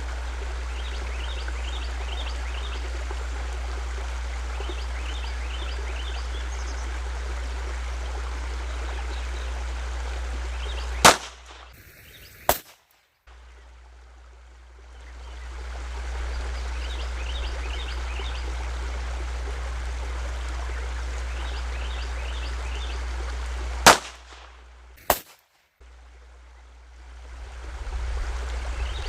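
Glock pistol with an Advantage Arms .22 LR conversion firing: two pairs of sharp shots, about a second and a half apart within each pair, with the sound cutting out briefly after each pair. Between them there is a steady hiss with a low hum, and birds chirping.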